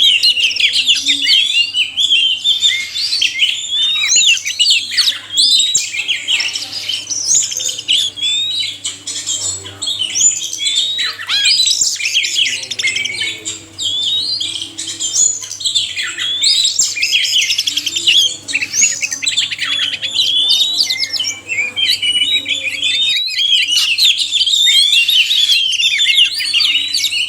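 Oriental magpie-robins (kacer), male and female, singing together: a dense, unbroken run of varied whistles, chirps and harsher notes from overlapping birds.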